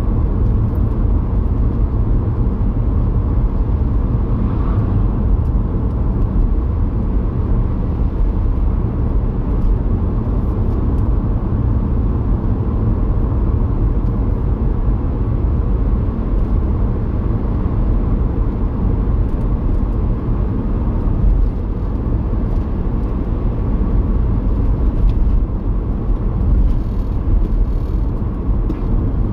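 Steady road and engine noise inside a car cruising at about 40 mph, a continuous low rumble with no distinct events.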